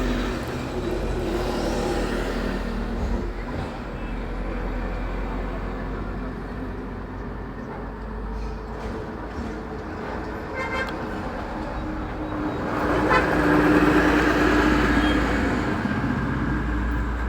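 Steady motor-vehicle running noise with a low hum and a few light clicks. One vehicle swells louder for a couple of seconds about thirteen seconds in.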